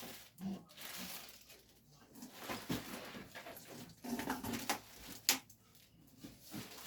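Handling noises: irregular rustling with a few knocks and one sharp click about five seconds in.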